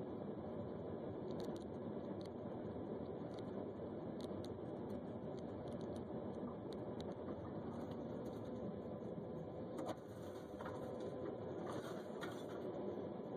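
Steady road and engine noise inside a moving car, recorded by a dashcam. A little before ten seconds in there is a short, faint thump as a Chevy coupe T-bones a Nissan just ahead. A couple of seconds of scattered clicks and ticks follow.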